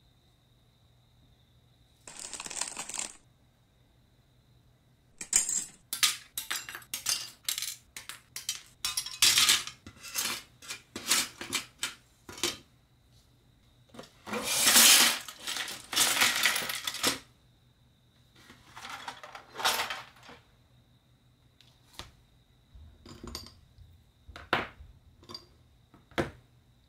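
Plastic model-kit parts and sprues being handled on a workbench: a dense run of sharp clicks and clatter about five seconds in, then longer scraping and shuffling as the cardboard kit box and cutting mat are moved, and a few scattered clicks near the end.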